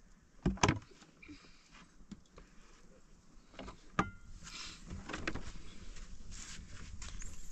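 A plastic basin and metal kitchenware handled: two knocks under a second in, then a metal clink with a brief ring about four seconds in. After that, milky liquid is poured from a metal cup through a metal funnel, trickling and splashing into the plastic basin.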